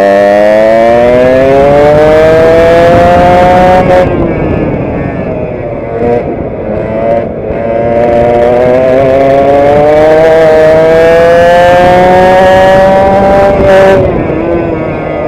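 Racing kart engine at full throttle, heard from onboard, its pitch climbing steadily as it accelerates. It drops off sharply about four seconds in, runs lower for a few seconds, climbs again for a long stretch and falls off near the end.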